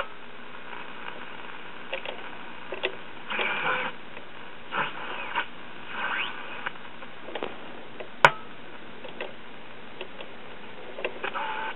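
Westinghouse WR209 tube radio's speaker giving faint static with short snatches of signals and brief whistles as the tuning capacitor is turned across the shortwave police band, where there is little to receive. A single sharp click comes a little past eight seconds in.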